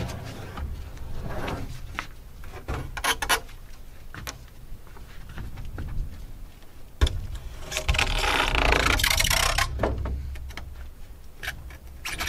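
Handling of a homemade wooden truss-support prop: wood scraping and rubbing with scattered knocks. There is a sharp knock about seven seconds in, followed by about two seconds of louder scraping.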